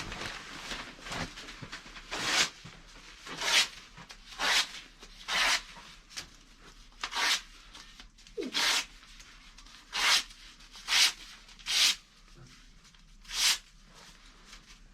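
About ten short, brisk scraping strokes, roughly one a second with uneven pauses, each a rough hiss.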